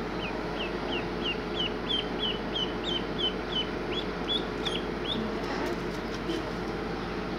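Duckling giving repeated high, short peeps, about three a second, stopping about five seconds in: the distress peeping of a frightened duckling held in the hand.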